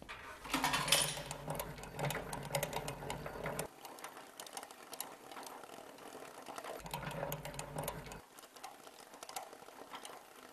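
Film projector running: a fast mechanical clatter of the film transport, with a low motor hum that sounds for the first few seconds and again briefly later.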